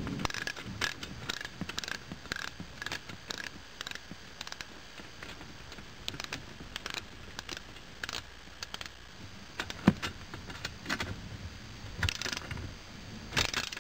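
Ratcheting wrench clicking in short strokes as it tightens the bolt of a SnapNrack Universal End Clamp on a solar mounting rail. The clicks come about two a second, with a few louder metal clicks near the end.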